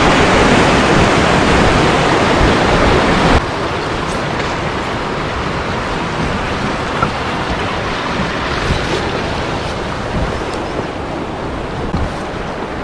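Whitewater river rapids rushing, loud at first, then cutting abruptly about three seconds in to a quieter, steady rush of fast-moving river water.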